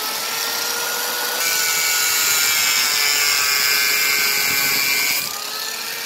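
Angle grinder running, its whine rising as the disc spins up, then cutting through a PVC sheet with a louder, harsher high-pitched noise for about four seconds. The cut finishes about five seconds in and the motor runs free again, its pitch rising slightly.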